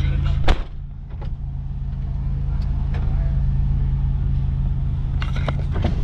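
Car door shut about half a second in, then the 1998 Buick Riviera's supercharged 3800 V6 idling, heard from inside the closed cabin as a steady low hum. A few clicks near the end, as of the power window switches being pressed.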